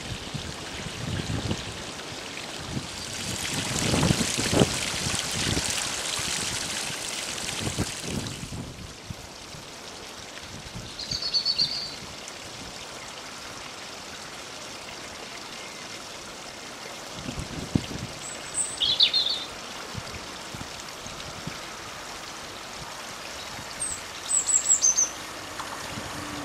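Open-air hiss with low rumbles, swelling for a few seconds early on, then settling; small birds give short high chirps three times. Near the end a faint low hum of the approaching Class 175 diesel train comes in.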